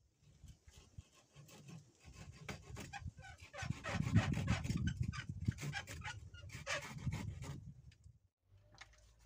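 Thin wooden branches rubbing, scraping and clicking as they are pushed and woven through a wattle frame. The sound is loudest in the middle and dies away near the end.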